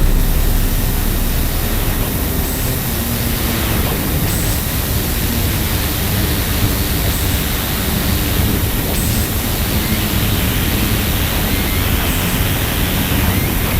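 Ritual industrial noise music: a dense, steady wall of noise over a low droning hum, with short faint high blips every second or two.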